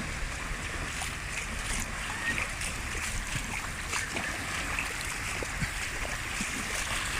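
Steady wash of water, like surf or a stream, with many small scattered clicks and crackles over it.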